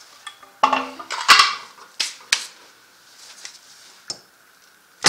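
Metal clanks and clicks as a Can-Am Outlander's rear CV axle is worked loose and pulled out of the rear differential. The sound is a string of separate knocks, with a cluster of clatters a little under a second in, the loudest just after, then a few sharper knocks later.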